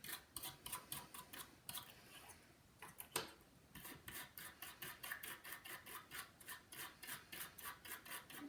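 Toothbrush bristles scrubbing a circuit board in quick, light back-and-forth strokes, about four a second, with a short pause a little past two seconds in; it is brushing water-damage corrosion off an iPhone 5 logic board with alcohol.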